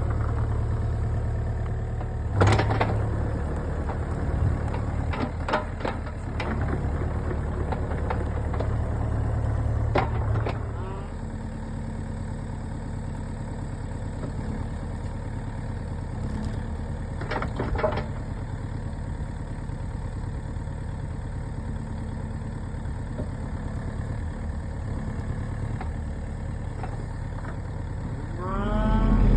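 Kubota KX057-4 mini excavator's diesel engine running steadily, with scattered clunks and knocks from the machine. The heavy low rumble eases off about ten seconds in, and near the end the engine revs up, rising in pitch and getting louder.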